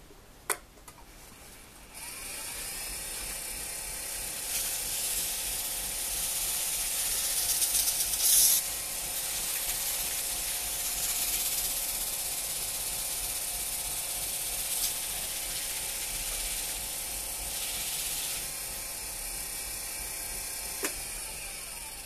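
Wood lathe running with the bowl spinning, and a pad held by hand rubbing against the turning bowl, giving a steady hiss over the motor's hum. It starts after a sharp click and fades near the end as the lathe is stopped.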